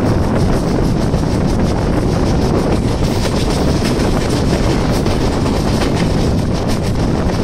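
Indian Railways express train running at speed: a loud, steady rumble with frequent, irregular sharp clicks as the wheels pass over the rails.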